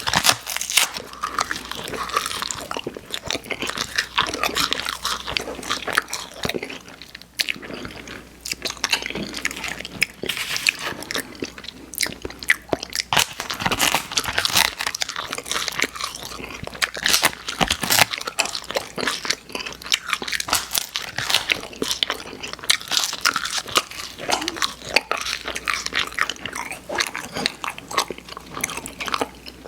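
Close-miked biting and chewing of crunchy edible imitation pens, markers and coloured paper, with many sharp crunches following one another throughout.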